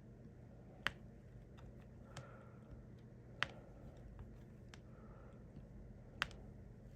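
Small sharp clicks of a diamond painting pen setting resin drills onto the canvas: three louder clicks about two and a half seconds apart, with fainter ticks between.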